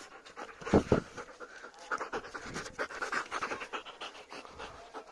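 White German Shepherd panting quickly with its mouth open, in rapid short breaths. Two loud thumps about a second in.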